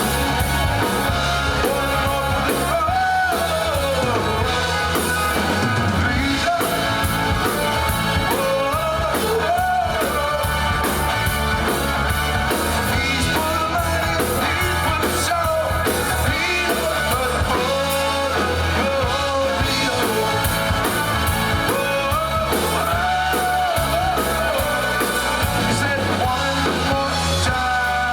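A rock and roll song with a singer, guitar and drums, playing through a push-button radio.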